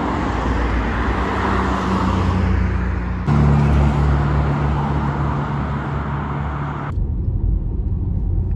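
Road traffic, with cars passing close by on a multi-lane road. About seven seconds in it changes suddenly to the duller, low drone of riding inside a moving car.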